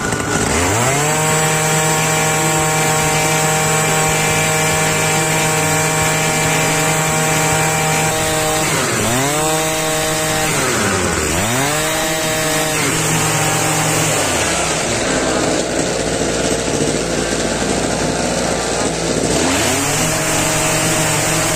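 Kawasaki TJ53 two-stroke string trimmer engine running after its carburettor and choke repair: it revs up about half a second in and holds high revs for about eight seconds, then the throttle is dropped and blipped twice. It idles for several seconds and is revved up again near the end.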